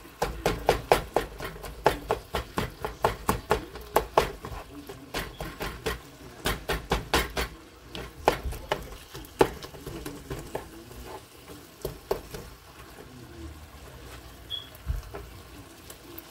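Black plastic spatula chopping and scraping through burger patties and onions in a nonstick skillet, a rapid run of sharp taps against the pan for about the first eight seconds, then slower, sparser taps.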